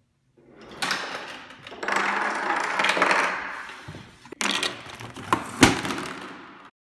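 Homemade Rube Goldberg machine running: a toy car rolls down its cardboard ramp, then a rush of rolling and clattering as pieces topple and balls roll, with several sharp knocks, the loudest a little before the end. The sound cuts off suddenly near the end.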